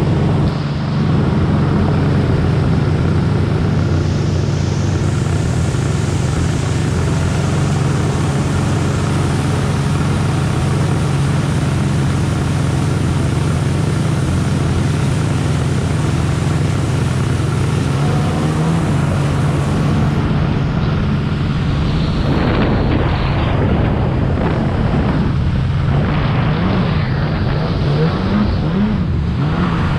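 Two-stroke stand-up jet ski running at speed on the river, a steady engine note under the rush of spray and wind. In the last third the engine pitch wavers up and down as it rides over choppy water.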